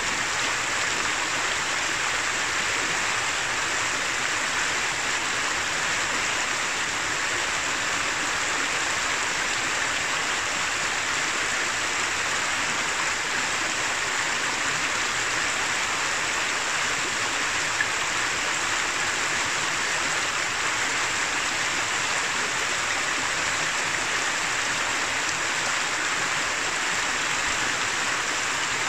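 Shallow mountain river, the upper Noguera Pallaresa, flowing over rounded stones and small riffles with a steady babbling rush of water.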